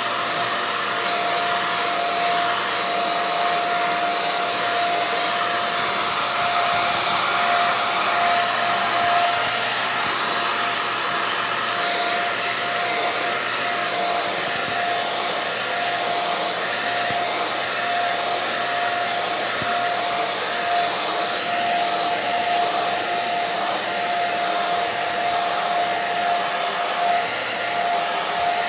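Vacuum cleaner running steadily: an even motor whine with a high, constant tone over the hiss of the airflow.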